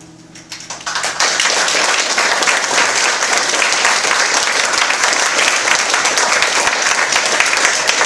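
Audience applauding: the last acoustic guitar chord dies away, and the clapping swells in about a second in and stays dense and steady.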